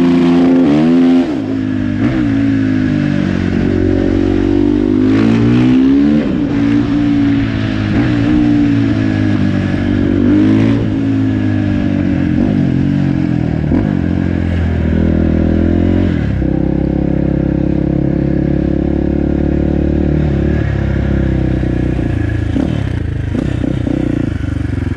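KTM 450 supermoto's single-cylinder four-stroke engine under way, revving up and dropping back again and again as the rider accelerates and shifts, then running at a steadier pitch with smaller changes in throttle for the last third or so.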